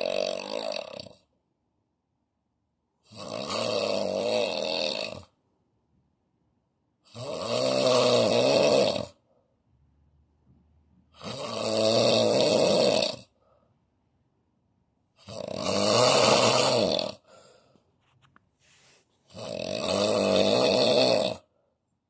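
A man snoring heavily in his sleep with his mouth open: one long snore about every four seconds, each lasting about two seconds, with silence between them.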